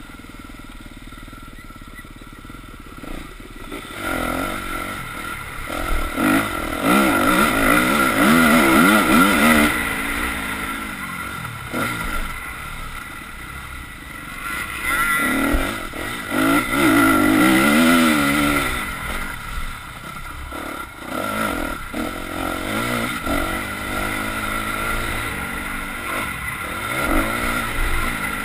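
Dirt bike engine heard from on board, revving up and falling back again and again as it is ridden. It is quieter for the first few seconds, then comes two long loud stretches of hard revving.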